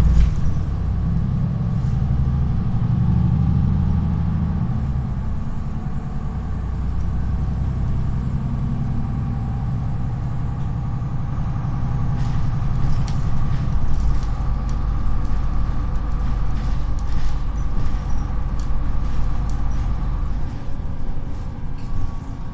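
Inside a Solaris Urbino 18 articulated city bus as it drives: a steady low rumble from the drivetrain with a faint steady whine, and light clicks and rattles from the fittings about halfway through.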